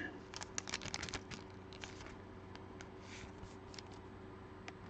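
Faint clicks and crinkly rustles of trading cards and their plastic sleeves being handled, busiest in the first second, then a few scattered clicks.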